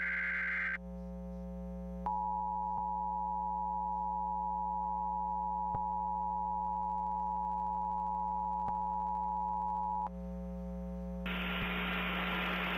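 Emergency Alert System broadcast: the last moment of the warbling SAME digital header burst, then after a brief pause the steady two-tone EAS attention signal, held for about eight seconds, that announces the monthly test message. A hiss comes in about a second before the end, over a faint steady hum.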